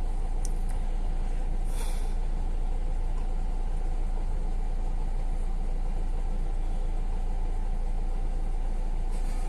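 Hyundai Verna's 1.6-litre diesel engine idling steadily, a low, even rumble.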